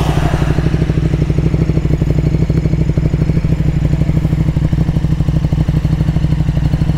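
Motorcycle engine idling steadily in neutral, with an even, fast pulse.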